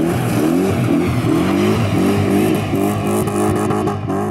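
BMW E30's swapped-in M60 V8 revving hard again and again as the car slides on gravel, the pitch climbing and dropping several times, with a hiss of tyres spraying gravel.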